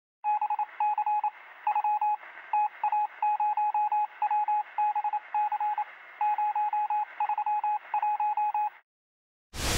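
Morse-code-style beeping: a single steady tone keyed on and off in groups of short and long pulses over a faint radio-like hiss, lasting about eight and a half seconds. Just before the end, a loud burst of music cuts in.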